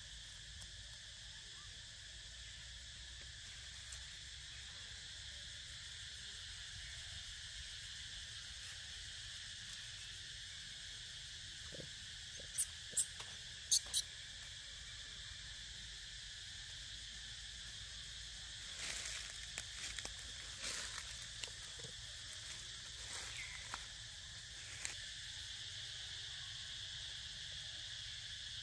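Steady outdoor insect chorus, a constant high drone. A few sharp clicks come about halfway through, and brief soft scuffs follow later.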